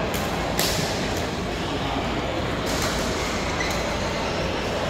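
Busy indoor badminton hall: a steady rumbling din with a few sharp racket hits on shuttlecocks from the surrounding courts.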